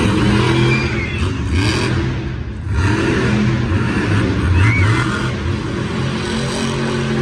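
Monster truck's supercharged V8 engine running loud under throttle, easing off briefly about two and a half seconds in and then revving back up.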